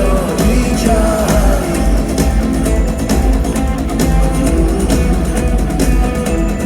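Live rock band playing loudly: guitars over heavy bass and drums, with a strong low end.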